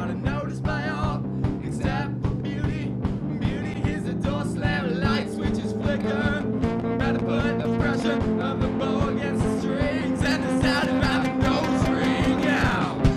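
Alternative rock music playing: guitar over a steady beat.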